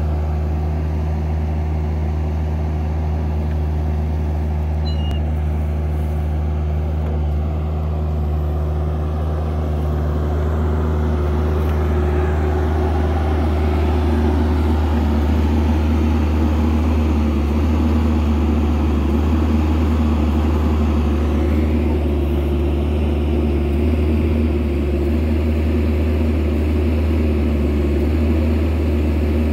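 Kubota KX121-3 mini excavator's diesel engine running steadily under hydraulic load while it digs and dumps dirt. It becomes a little louder about twelve seconds in.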